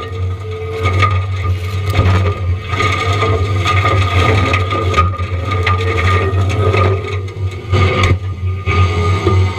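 Forestry mulching head on a John Deere 333E compact track loader grinding pine trees, with a steady machine hum under repeated cracking and crunching of wood.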